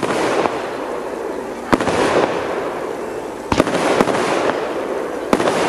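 Aerial firework shells bursting overhead: a series of sharp bangs, roughly one every one to two seconds, each trailing off over about a second.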